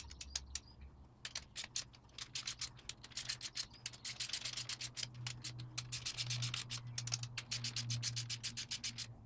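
Hand ratchet clicking in quick runs as bolts on top of a cylinder head are run down just to resistance. A steady low hum comes in about four seconds in.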